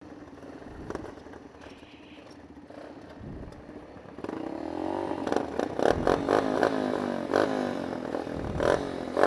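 Small minibike engine running at a steady idle, then from about four seconds in an engine is revved up and down repeatedly, with scattered clattering knocks.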